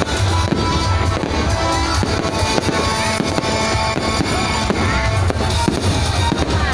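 Fireworks going off, with repeated sharp bangs and crackling, over loud music with a heavy bass beat.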